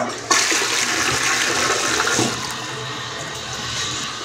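Toilet flushing: a sudden rush of water about a third of a second in, loudest for the first two seconds, then settling into a steadier swirl and gurgle as the bowl drains.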